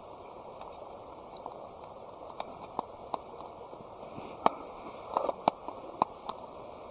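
Steady rush of a river with scattered sharp clicks and pops at irregular intervals. The loudest click comes about four and a half seconds in, followed by a quick cluster of small ones.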